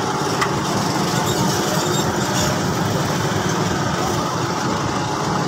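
Steady machinery drone, like an engine running, holding even with no strokes or changes.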